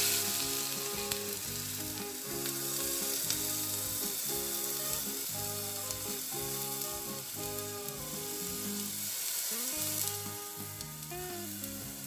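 Boiling water poured from an electric kettle into a stainless steel pot, a steady hissing splash that trails off near the end, over soft instrumental background music.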